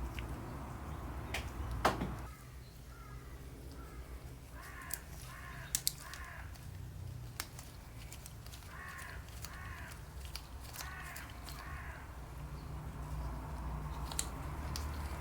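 A bird giving harsh calls in short runs of three or four, three times over. Sharp clicks are scattered throughout, with a louder knock about two seconds in.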